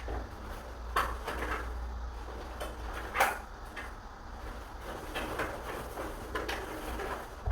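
Scattered knocks and clunks of door parts or tools being handled during door repair work, the loudest a little after three seconds in, over a steady low hum.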